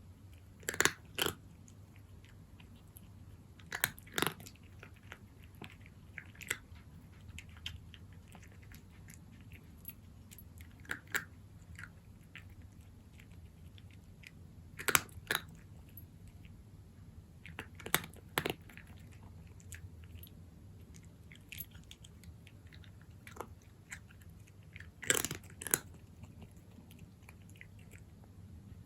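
A cat chewing dry kibble: sharp crunches come in short clusters of two or three, every few seconds, with quieter crunching between. A low steady hum runs underneath.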